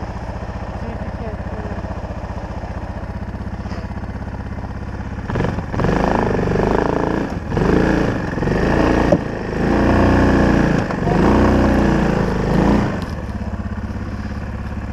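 Four-wheeler (ATV) engine idling with a rapid, steady putter. From about five seconds in it is throttled up in a series of revs lasting some seven seconds while it crawls slowly forward, then it drops back to idle.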